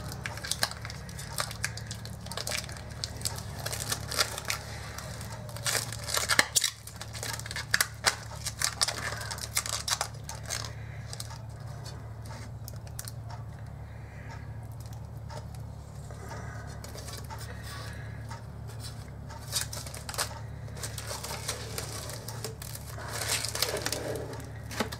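Blue protective plastic film being peeled off the sheet-aluminium hopper panels of a grain mill: irregular crackling and crinkling, thinner in the middle, over a steady low hum.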